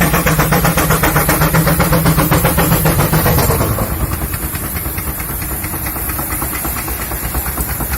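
A 22 hp Keck-Gonnerman engine running a sawmill, with a fast, even exhaust beat. It is loud with a strong low hum for about three and a half seconds, then drops in level and eases for the rest.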